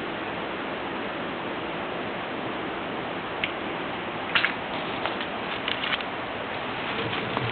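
Kindling of a campfire crackling, a few sharp pops and snaps about halfway through and a cluster of them a little later, over a steady hiss.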